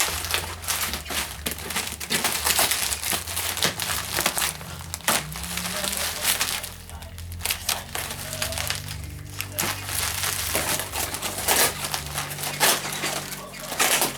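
Paper and cardboard packing material crumpling and rustling as it is pulled and handled, with irregular crackles and scrapes.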